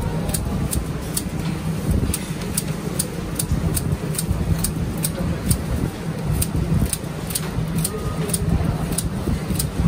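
Scissors snipping crisp fried dough fritters (you tiao) into pieces, a short sharp snip about two or three times a second, over a steady low background hum.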